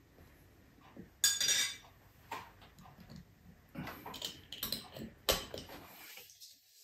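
Metal tongs clinking against a plate and a glass jar, and the jar's lid handled: scattered light clicks and knocks, the sharpest about a second in and about five seconds in, with a short scrape just after the first.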